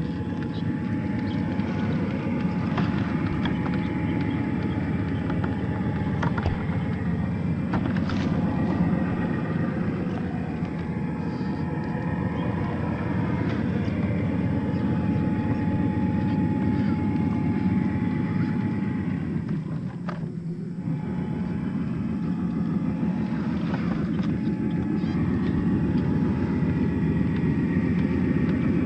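Electric drive whine from a Traxxas TRX-4 1/10-scale crawler's stock motor and gearbox as it crawls over brush and fallen branches, with a few sharp cracks as sticks snap or knock under the tyres. The whine drops out briefly about two-thirds through, then picks up again.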